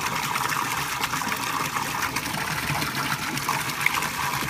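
Water pouring steadily from a PVC pipe outlet into a tub of water, splashing and churning the surface: the return flow of a Deepwater BLDC 12000 DC aquarium pump run at its third power level.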